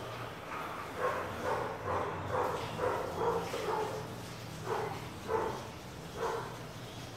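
A dog barking repeatedly, about ten short barks over five seconds, with a brief pause near the middle.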